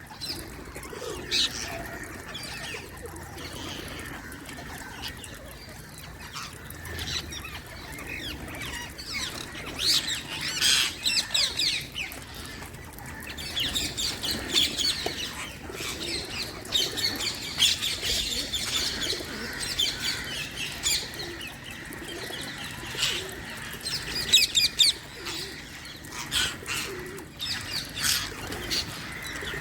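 Wild Indian green parrots (parakeets) calling: shrill high chirps in quick runs, coming in busy bursts and easing off between them.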